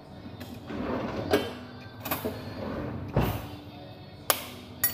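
Eggs being handled and cracked over a small ceramic bowl: a few separate knocks and clicks, the sharpest two close together near the end as an egg is tapped open, over faint steady background music.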